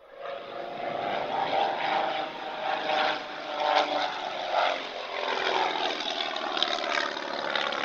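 Propeller-driven aircraft engine running steadily.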